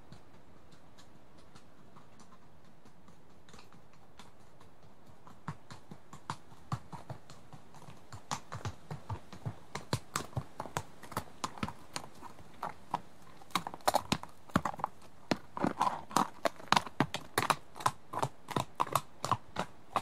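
Hoofbeats of a single horse at a walk, approaching: a clip-clop that starts faint about five seconds in and grows steadily louder, loudest near the end.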